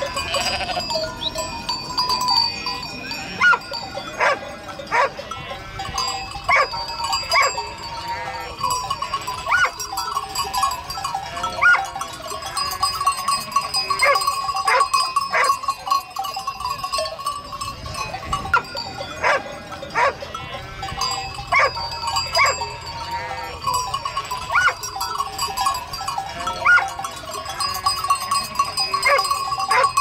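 A flock of sheep bleating, many separate calls from different animals sounding one after another and overlapping.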